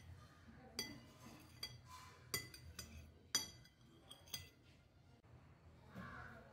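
Several light clinks of a utensil against a ceramic plate, spread over a few seconds, the loudest about three and a half seconds in.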